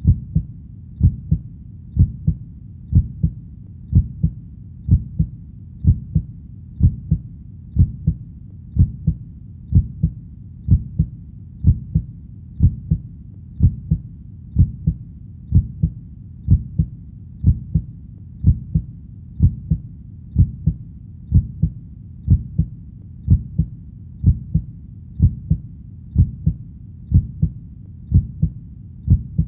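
Heartbeat: steady, even lub-dub thumps, about one beat a second, low and dull.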